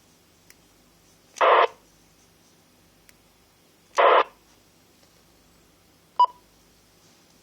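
Icom IC-400PRO UHF CB radio: two short bursts of static about two and a half seconds apart over a low background hiss, then a short beep near the end.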